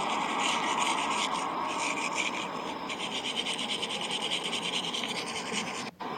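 Continuous rough noise of a starter-motor part being cleaned. It starts suddenly, breaks off for an instant near the end and resumes.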